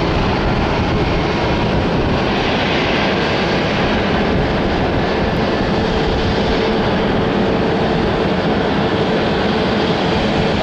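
Boeing 757-200's twin jet engines at take-off power: a loud, steady roar with a faint steady whine in it.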